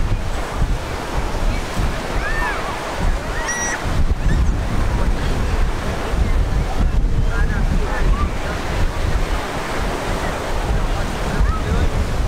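Wind buffeting the microphone in heavy gusts over the steady wash of Gulf surf. A few brief, faint high-pitched calls cut through now and then.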